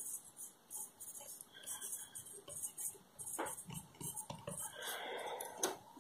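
Pen writing on paper: faint, irregular scratching strokes as a few words are written by hand.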